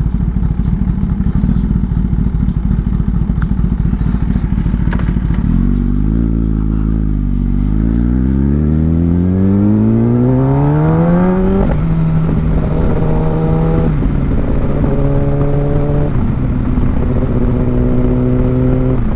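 Kawasaki ZX-10R inline-four sport bike engine under way. The revs drop, then climb for about four seconds before a sharp drop at a quick-shifter upshift. The bike then runs steadily, with further gear changes twice.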